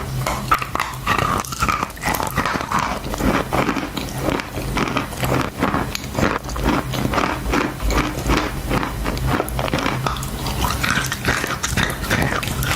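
Close-miked biting and chewing of chalk: dense crisp crunches, several a second, over a low steady hum.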